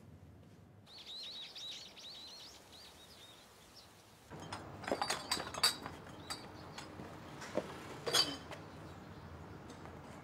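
Small birds chirping for a couple of seconds, then glass bottles clinking and rattling in a wooden crate as it is carried and set down on the ground, with a few sharp clinks.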